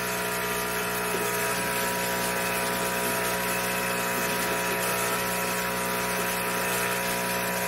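Electric vacuum pump of a Hantop goat milking machine running steadily with an even motor hum while it draws milk from a dairy goat's teats through the lines.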